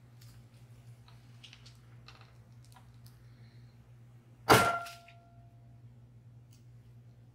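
Metal frame of a multi-wire soap cutter striking once with a loud clang about four and a half seconds in, followed by a brief metallic ring. Before it come faint scattered ticks and rustles.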